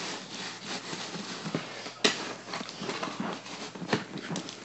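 Rubbing and knocking on a phone's microphone as the phone is handled and moved, with a sharp knock about two seconds in and another near the end.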